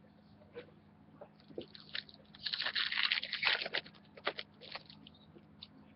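A trading-card pack wrapper crinkling for a little over a second, about halfway through, amid light clicks and rustles of cards being handled.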